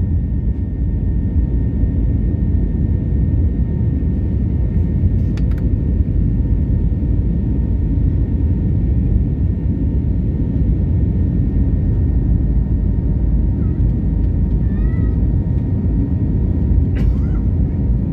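Aeroplane take-off noise: a steady, loud low rumble of the engines, with a couple of faint steady whining tones above it. A few brief high, squeaky cries about fourteen to fifteen seconds in.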